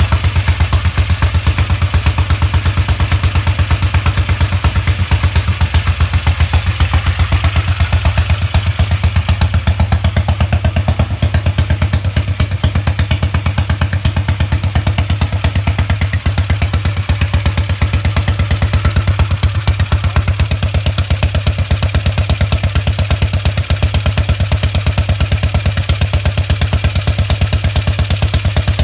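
A restored BSA Gold Star 500's single-cylinder four-stroke engine running steadily at idle on its first run after restoration, with an even, regular exhaust beat.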